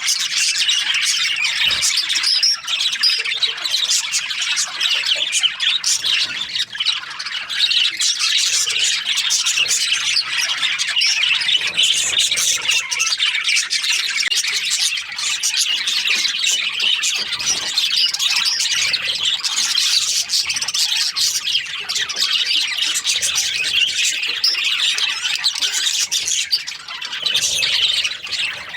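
Many budgerigars chirping at once, a dense, continuous chatter of short high calls.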